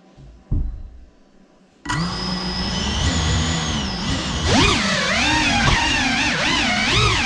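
Brushless motors and ducted propellers of a GEPRC Cinelog 35 FPV cinewhoop spin up suddenly with a high-pitched whine of several tones. The whine holds steady at idle, then rises and falls quickly with the throttle as the quad lifts off. A short low thump comes about half a second in, before the motors start.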